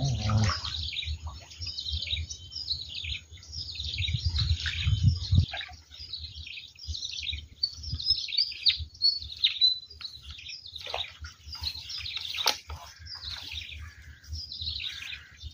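Many birds chirping and twittering without pause, high and busy. A low rumble runs under the first five seconds or so, and there is a single sharp click about twelve and a half seconds in.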